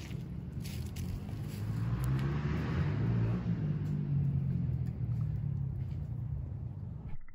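Low rumble of wind gusting on the microphone, swelling about two seconds in and easing off, over a shavings fire burning in a small metal hobo stove.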